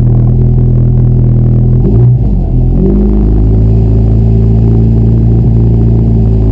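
VW Golf GTI 16V rally car's four-cylinder engine running loud and steady while the car stands still, heard from inside the stripped cabin. About two seconds in the engine note wavers briefly, then settles into a steady drone again.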